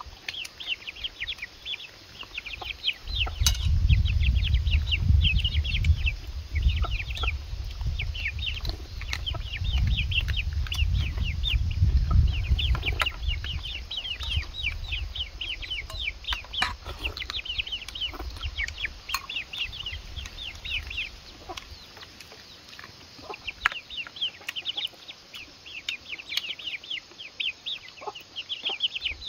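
Chickens clucking, with many quick high chirps throughout and scattered sharp clicks. A low rumble sits under it from about three seconds in until about two-thirds of the way through.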